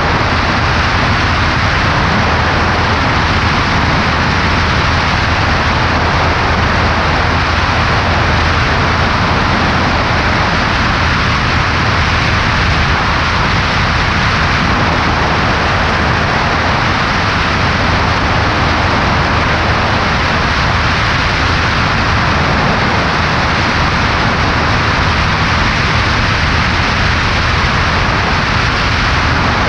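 Cessna 140A's engine and propeller droning steadily beneath a heavy, even rush of wind over a microphone mounted on the left wing. Level and tone hold the same throughout, with no change in power.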